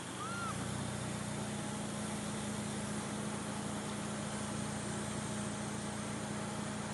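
Engine running at a steady low pitch, setting in about half a second in and holding steady. A single short high chirp sounds just before it.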